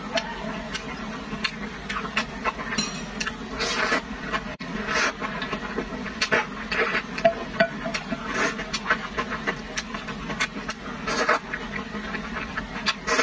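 Noodles in chili sauce being slurped and chewed, with wet mouth sounds coming in short, irregular bursts.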